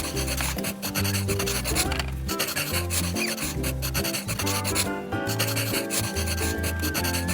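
Quick, repeated scrubbing strokes over background music with a held bass line.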